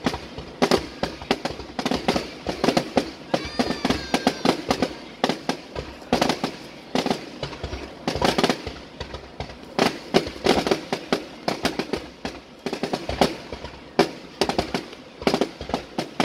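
Fireworks bursting close by in a dense, irregular barrage of sharp bangs, several a second, with no let-up.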